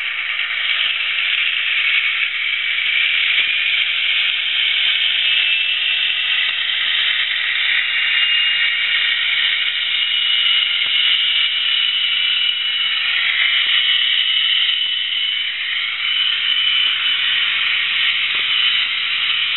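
Olivia's Trains sound decoder in a Hornby OO Class 42 Warship model playing the running sound of the loco's twin Maybach diesel engines through its tiny speaker: a steady, thin, hissy engine sound with no bass.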